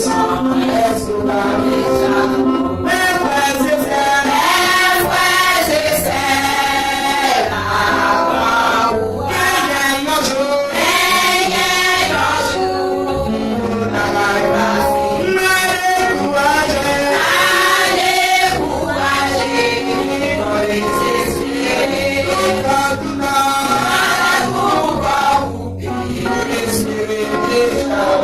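A choir singing a gospel hymn with mixed voices, over instruments keeping a steady beat.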